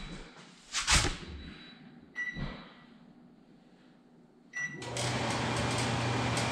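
Over-the-range microwave: a knock about a second in, then two short control-panel beeps as its buttons are pressed, and near the end it switches on and runs with a steady hum and fan noise.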